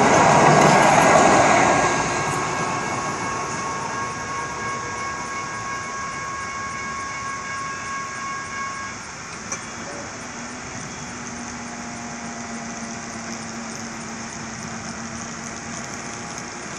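Sacramento RT electric light rail train rolling past the grade crossing, loud for the first two seconds and then fading as it pulls away. Steady ringing tones stop about nine seconds in, and a low steady hum begins about a second later.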